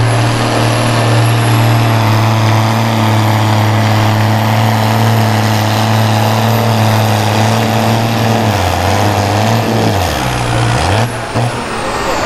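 Valmet 110ID tractor's turbocharged MWM diesel engine running flat out under load as it pulls the sled, with a steady note and a high turbo whistle over it. Near the end the engine note sags and wavers as it lugs down, and the whistle falls away.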